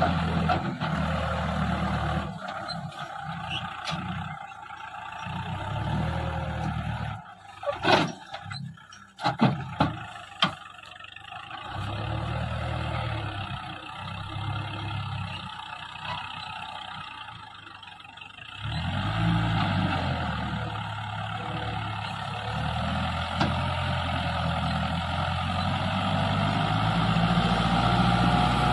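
Kubota 45 DI four-wheel-drive tractor's diesel engine labouring as it hauls an overloaded trailer of potato sacks through soft field soil, its note swelling and easing. About eight seconds in come several sharp knocks, and from about two-thirds of the way through the engine runs louder and steadier under the pull.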